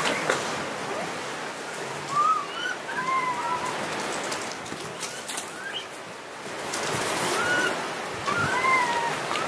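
Japanese macaques giving soft coo calls: short, clear notes that rise and fall in pitch, a cluster a couple of seconds in and another near the end, over a steady background hiss.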